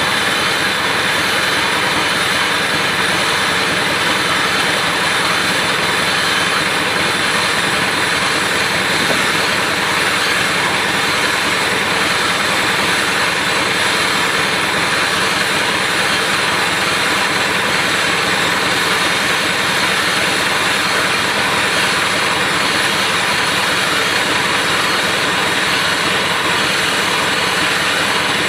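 Marshall 702 tractor's diesel engine running steadily while it drives a trailed Kverneland UN7512 bale wrapper, which turns a round bale and wraps it in film.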